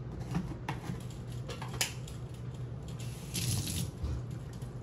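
A ceramic mixing bowl handled and shifted on a granite counter: a few light clicks and knocks, and a short hiss about three and a half seconds in, over a steady low hum.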